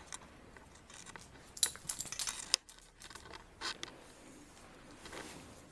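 A young dog pawing and scratching at a crumpled cotton sheet on a rug: fabric rustling with scattered sharp scratches and clicks, busiest about a second and a half to two and a half seconds in, and again near four seconds.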